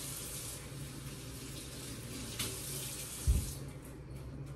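Kitchen faucet running into a stainless steel sink, then turned off about three and a half seconds in, with a dull thump just before it stops.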